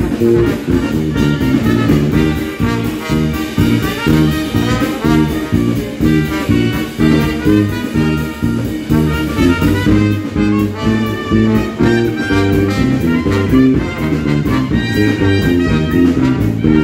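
Live Dixieland jazz band playing: trumpet, clarinet and trombone over electric bass guitar and drum kit.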